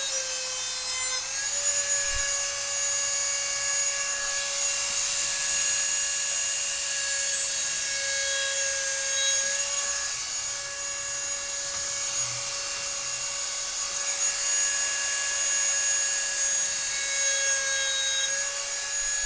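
Dremel rotary tool running at high speed, a steady whine with a gritty rasp as its grinding bit is stroked along a lawn mower blade's cutting edge to sharpen it. The pitch dips slightly about a second in.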